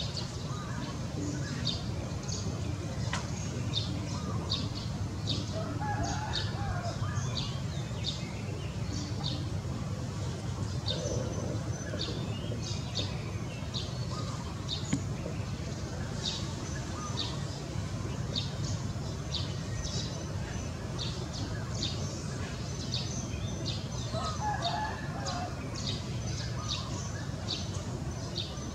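Outdoor bird ambience: many short, high chirps repeating throughout over a steady low rumble, with two longer, lower calls, about six seconds in and near the end.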